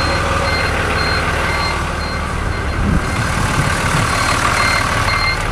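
Fiat 100-90 tractor's diesel engine running steadily, with a short high electronic warning beep repeating about twice a second.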